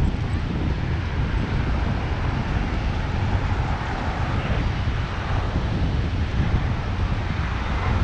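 Wind buffeting the microphone in a steady, uneven low rumble, over the wash of breaking surf.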